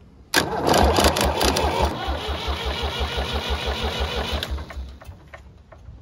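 David Brown 880 tractor's three-cylinder diesel being cranked by its starter motor, which is jumped with a screwdriver: a steady starter whirr with even compression pulses, about six a second. It turns over for about four seconds and stops without the engine catching, on a first start attempt after years of sitting.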